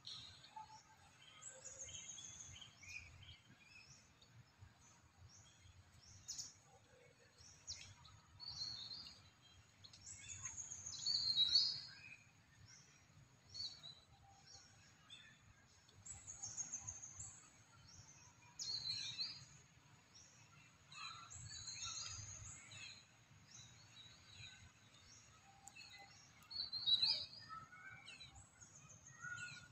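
Wild birds chirping and calling: many short, high chirps and trills throughout, loudest about eleven seconds in and again near the end, over a faint low rumble.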